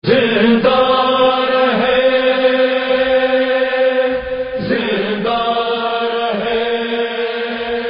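Chanting in long notes held at one steady pitch, with short breaks between notes every one to three seconds.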